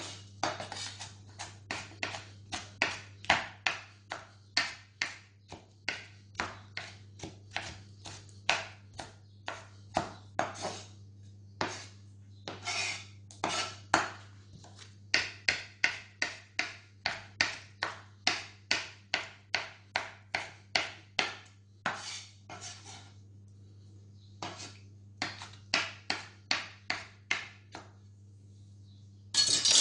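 Chef's knife chopping a tomato on a wooden cutting board: sharp knocks about two a second, with a couple of short pauses, over a steady low hum. A louder scrape comes near the end as the knife blade is drawn flat across the board.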